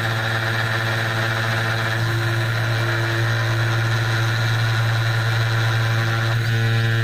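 775 spindle motor of a 2417 desktop CNC running steadily at about 6000 rpm while its carbide ball-nose cutter engraves lettering into anodized aluminium: an even machine hum with a higher whine over it.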